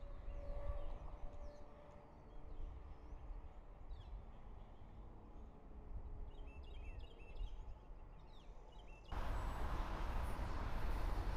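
Small birds chirping in short calls over a low background rumble. About nine seconds in, a loud, steady noise from a BNSF freight train's diesel locomotives starts suddenly.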